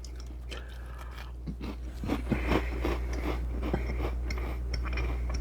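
Close-miked chewing of shrimp cocktail: wet mouth smacks and small irregular clicks, busier from about two seconds in, over a steady low hum.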